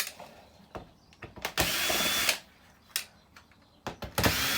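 Cordless drill-driver backing screws out of a flat-screen TV's back cover: two short bursts of motor whine about two and a half seconds apart, with small clicks and knocks of handling between them.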